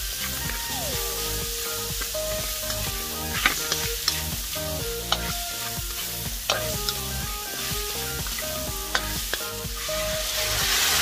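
Shrimp and vegetables sizzling in a hot metal wok while being stir-fried, with a spatula scraping the food around and knocking sharply against the pan now and then. Near the end, water poured into the hot wok brings a louder hiss.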